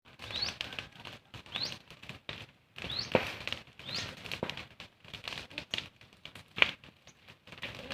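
Campfire burning, with irregular crackles and sharp pops of the wood and a few short rising chirps, about one a second, in the first half.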